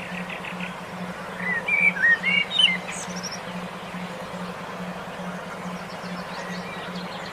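A songbird sings one short burst of quick, warbling, up-and-down notes about a second and a half in, with faint high chirps around it. Underneath runs a steady low tone that pulses about four times a second.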